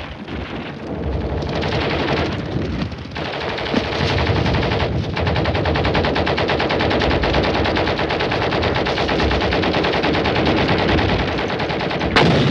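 Long stretches of rapid machine-gun fire, crackling without let-up, with short breaks about three and five seconds in. One sharper, louder bang near the end.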